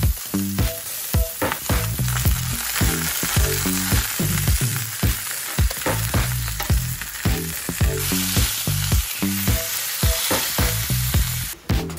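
Chicken roulades sizzling as they sear on a hot, oiled barbecue hotplate, a steady frying hiss, over background music with a steady beat.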